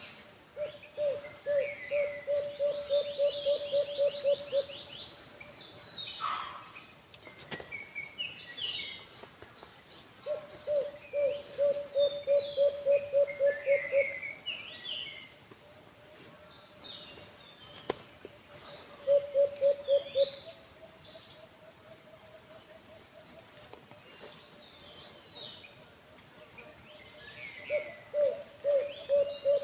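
Alimukon dove calling in runs of rapid, low pulsed coos, about three or four notes a second, four runs of a few seconds each. Small birds chirp high over it, and a steady high-pitched whine runs underneath.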